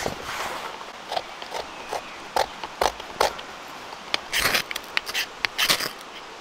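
Knife spine scraped along a ferro rod to shave it and throw sparks onto tinder for lighting a fire. It comes as a series of short scrapes, with two longer, louder rasps about four and a half and five and a half seconds in.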